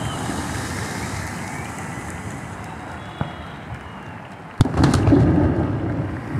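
Steady wash of surf, then a sudden loud firework bang about four and a half seconds in, followed by a quick crackle and about a second of rumbling echo.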